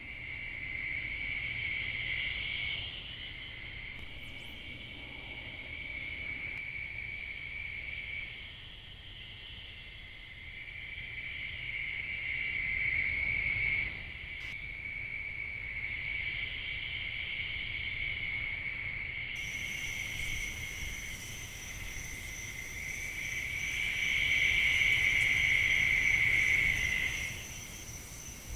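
Night chorus of calling insects: a steady high trill that swells and fades in long, slow waves and is loudest near the end. A fainter, higher-pitched trill joins about two-thirds of the way through.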